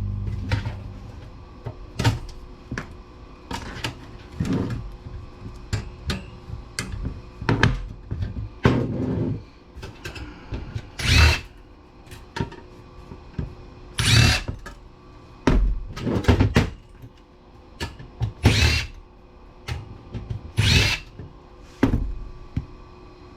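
A power drill/driver running in short bursts of under a second, a dozen or so times, with clicks and clunks of metal parts between the bursts. This is typical of screws being driven out of PC power supply casings to take them apart.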